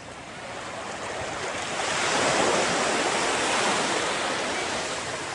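Ocean surf washing onto a beach: a hiss of water that swells over about two seconds, then slowly ebbs.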